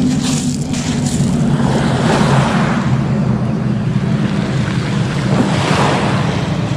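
Small waves washing up on a pebble shore, swelling about two seconds in and again near the end, over a steady rumble of wind on the microphone.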